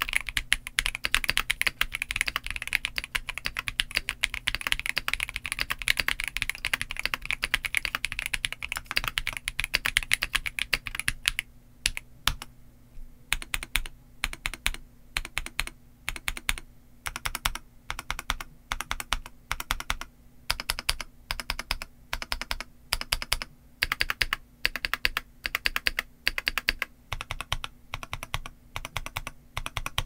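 Keychron V3 Max mechanical keyboard with Jupiter Banana switches and OSA keycaps being typed on. The typing is fast and continuous for about the first eleven seconds. After a short pause, single keys and short runs are pressed at a slower, uneven pace.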